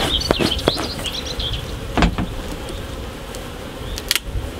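Honeybees buzzing over an open hive, a steady hum. A few quick puffs of the bee smoker's bellows in the first second, and sharp knocks about two seconds in and just after four seconds as the hive's queen excluder is handled.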